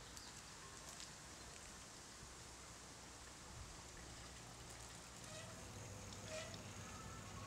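Very faint outdoor ambience: a soft, even hiss, with a few faint short tones in the second half.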